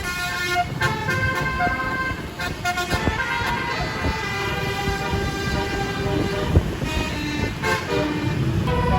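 Bus 'telolet' horn, a Basuri multi-tone musical horn, playing a tune: held notes that step from one pitch to the next several times a second, over the rumble of the bus.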